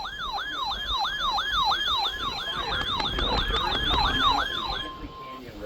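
A siren in a fast yelp, its pitch sweeping up and down about two and a half times a second. It stops about five seconds in, followed by a short steady beep.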